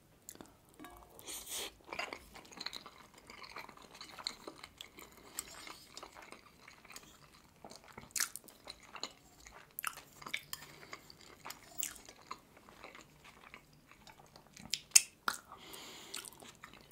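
Close-miked chewing and wet mouth sounds of eating steamed meat dumplings (manti): soft smacks and small clicks, with a few sharper clicks near the end.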